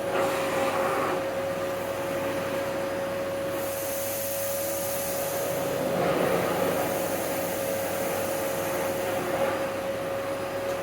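Hoover Breeze Pets vacuum cleaner running with a steady motor whine as its plain, non-powered floor head is worked back and forth over a carpet strewn with table salt. A brighter rush of air rises for a couple of seconds midway.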